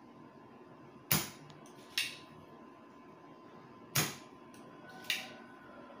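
Spring-loaded desoldering pump (solder sucker) firing four times: sharp snapping clicks about a second in, at two seconds, at four and just after five, each sucking melted solder off the circuit board's pads to clean them.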